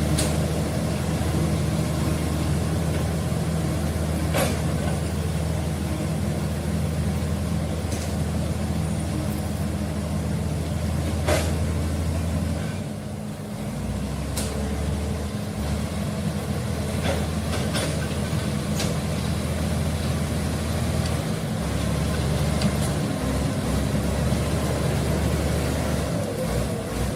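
Komatsu D85E-SS bulldozer's diesel engine running steadily at work. It eases off about halfway through and picks up again later, with a few sharp knocks.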